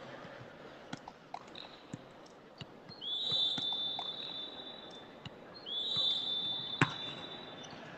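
Referee's whistle blown in two long, steady blasts about two seconds each, then a single sharp smack of a volleyball being hit shortly after the second blast. Faint scattered knocks of balls and feet on the court underneath.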